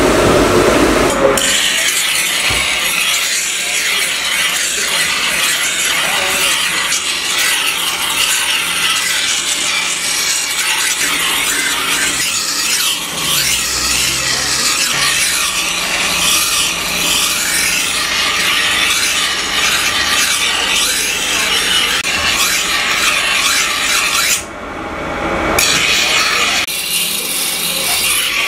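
Forged steel sickle blade ground against a bench grinder's abrasive wheel: a steady, harsh hiss of steel on the spinning wheel, starting about a second in. Near the end the grinding drops away for about a second, then resumes.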